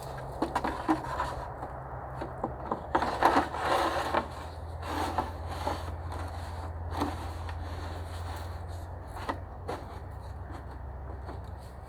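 Wooden sticks and branches rubbing, scraping and knocking as they are handled, in a run of bursts over the first half, loudest about three seconds in, then fewer. A steady low hum runs underneath.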